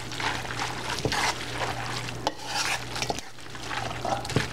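Sauced lo mein noodles being mixed by hand in a stainless steel bowl: irregular wet squishing and rustling, with a few sharp clicks.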